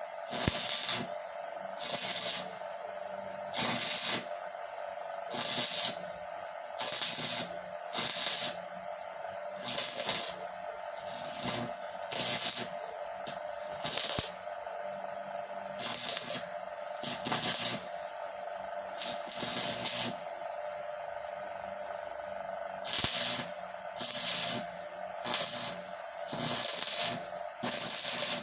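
Stick welding with a homemade arc welder built from a microwave-oven transformer: the arc crackles and hisses in short bursts about every one and a half seconds, striking and going out again and again, over a steady hum.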